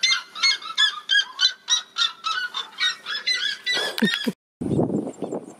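Red-legged seriema calling: a loud, rapid run of yelping notes, about five a second. The calling cuts off near the end and gives way to a low rumble.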